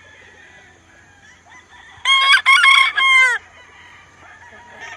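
A gamefowl rooster crowing once, about two seconds in, for a little over a second.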